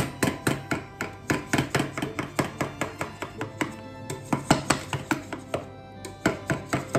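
Background music: a light plucked-string tune of quick, evenly spaced notes.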